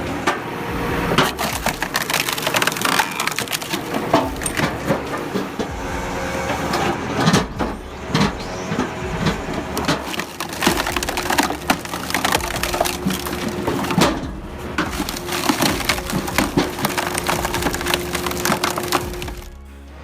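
Kirpan CH32K tractor-mounted horizontal hydraulic log splitter forcing logs apart: repeated cracking and splintering of wood, with a steady hum under it through the second half. It stops abruptly just before the end.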